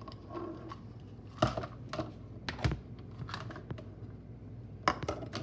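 Plastic measuring cups clicking and knocking against the rim of a plastic mixing bowl as coconut flour is tipped in. There are a handful of sharp taps; the loudest come about one and a half seconds in and again near the end.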